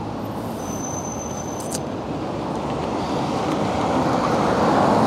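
Road traffic noise from passing cars, a steady rush of tyres and engines that grows louder toward the end as a vehicle comes closer.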